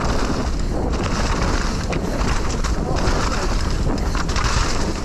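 Mountain bike descending a rough dirt trail at speed: wind rushes over the microphone and the tyres rumble on the dirt, with a constant clatter of small knocks and rattles from the bike.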